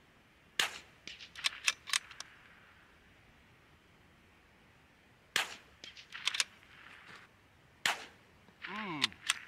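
.22LR bolt-action rifles (Desert Precision Gunworks RimX) firing three shots, about 0.6, 5.4 and 7.9 seconds in. Each shot is followed by a quick string of lighter clicks. A short voice-like sound gliding in pitch comes near the end.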